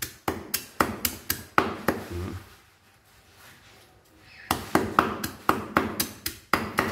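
Cleaver chopping lemongrass on a wooden chopping board: rapid chops about four a second, stopping for about two seconds midway, then starting again.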